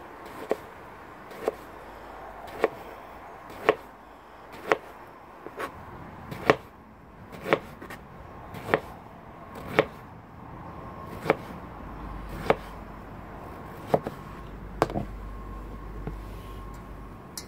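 Kitchen knife slicing a peeled eggplant into rounds on a plastic cutting board: a sharp tap each time the blade meets the board, roughly once a second.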